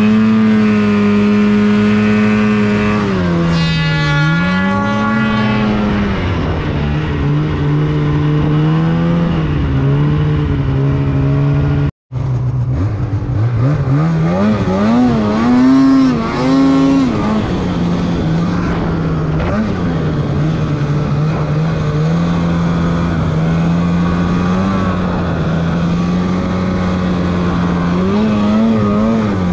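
Polaris snowmobile engine running under varying throttle, its pitch falling and rising repeatedly, climbing sharply in a couple of surges a little past the middle. The sound cuts out for a split second about twelve seconds in.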